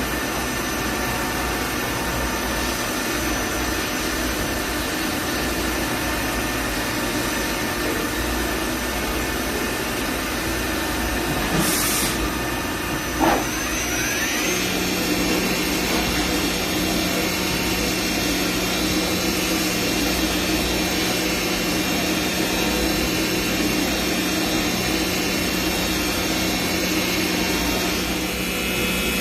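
CNC milling machine running a cut dry, with air cooling in place of coolant spray: a steady spindle whine over machining noise. About twelve seconds in there is a brief hiss, then a short knock with a quick sweep in pitch. From about fourteen seconds the tone of the running machine changes, with a new low hum and higher whine.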